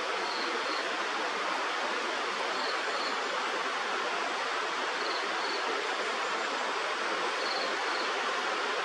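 Steady rushing of a river or stream, with a faint high double pip that repeats about every two and a half seconds.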